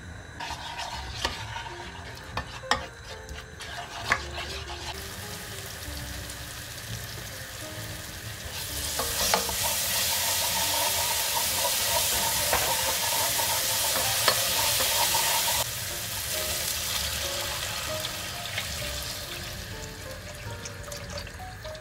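Tomato paste sizzling in hot oil in a nonstick pot as it is stirred. A few sharp clicks of a metal spoon against the pot come in the first few seconds. The sizzle then swells and is loud for several seconds in the middle, drops off suddenly and fades. Near the end water is poured in.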